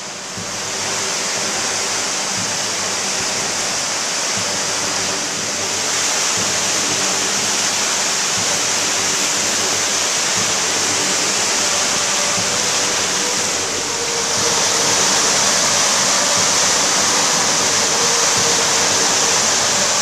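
The River Tees in spate, churning through white-water rapids with a steady rushing of water. It grows louder in steps, about a second in, around six seconds, and again near fifteen seconds.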